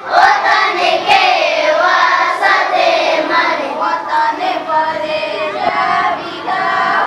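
A group of schoolchildren singing a prayer together in unison.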